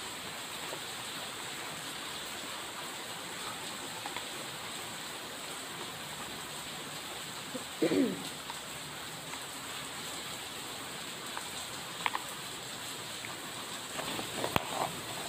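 Steady hiss of rain falling. About eight seconds in there is a brief low, pitched sound, and near the end a plastic bag crinkles and clicks as it is handled.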